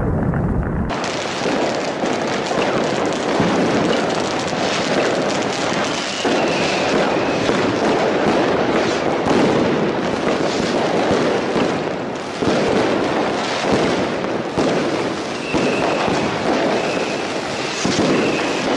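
Fireworks going off in a dense barrage of crackling bangs. Heavy low booms stop abruptly about a second in, and short high whistles cut through around six seconds in and again near the end.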